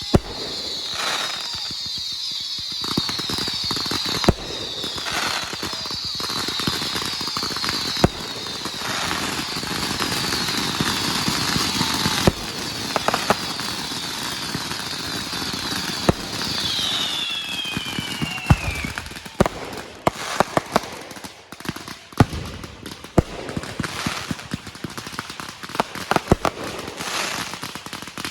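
Fireworks going off: a run of sharp bangs and crackling, with a falling whistle about seventeen seconds in.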